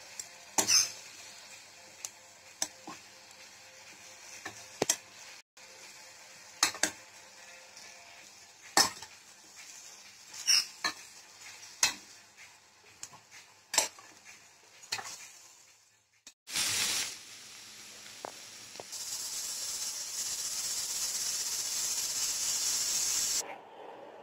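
A steel spoon stirring sliced mushrooms in a pan, clicking and scraping against the pan every second or two over a faint sizzle. In the last few seconds a louder, steady sizzling hiss that cuts off suddenly.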